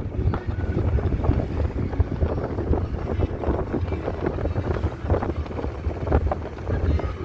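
Wind buffeting the microphone: a loud, unsteady low rumble with gusty peaks.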